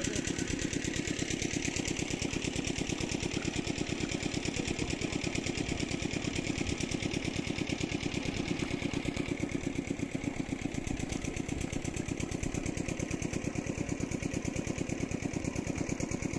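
A small engine running steadily with a fast, even beat that does not change.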